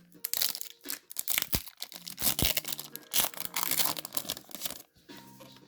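Pokémon TCG booster pack's foil wrapper being torn open and crinkled: a run of tearing and rustling crackles that stops about five seconds in. Faint background music underneath.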